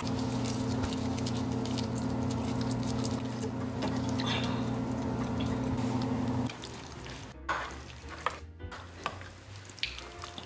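A steady hum of several held low tones that cuts off abruptly about six and a half seconds in. After it, softer scattered clicks and clinks of tableware and eating.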